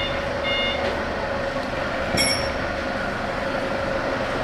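Truck engine running steadily with its reversing beeper pulsing, the beeps stopping about a second in. A single short metallic clink rings out about two seconds in.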